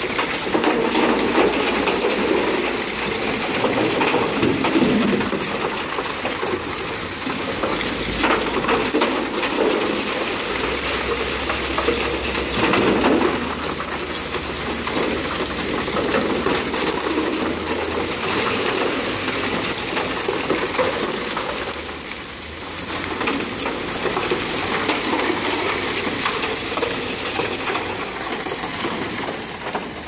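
High-pressure water jet from a hose wand spraying steadily against a concrete mixer truck's chute and drum, washing out leftover concrete. The hiss of the spray weakens briefly once, about three-quarters of the way through.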